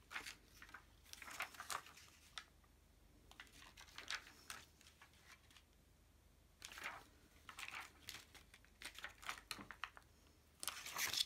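Sheet of self-adhesive rhinestones being handled and the stones peeled off their plastic backing by fingernails: light crinkling and peeling crackles in scattered clusters, with a louder crackle near the end.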